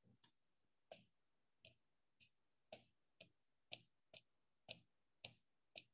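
Faint, sharp clicks of a computer mouse, about two a second, over near silence.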